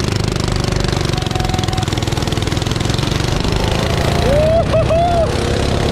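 Mini bike engines running steadily as the bikes ride along together, with wind noise on the bike-mounted microphone.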